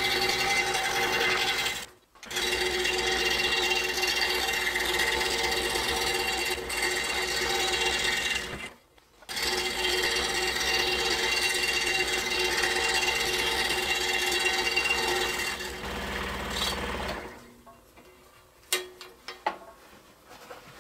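Excalibur scroll saw running, its blade stroking up and down as a thin piece of wood is fed through it. The steady running breaks off abruptly twice and stops about 17 seconds in, followed by a few light clicks.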